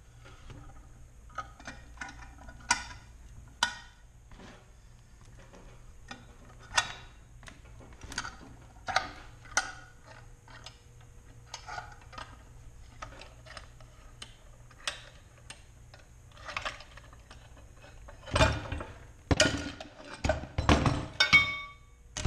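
C-clamps being unscrewed by hand, with scattered small metallic clicks and taps from the screws and handles. A few louder knocks and clanks come near the end as the clamps and aluminum pressing bars are set down on the wooden bench.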